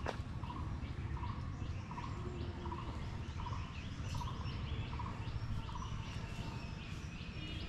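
A bird calling over and over in short notes, about twice a second, over a steady low rumble.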